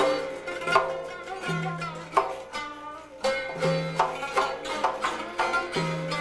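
A long-necked plucked lute played solo: a melodic run of plucked notes over a low note that comes back about every two seconds.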